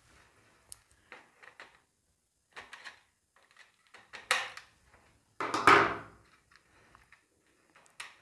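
Pliers prying at the end cap of an LED tube light to take it off: a run of small clicks and scrapes, with a louder, longer scrape about five and a half seconds in.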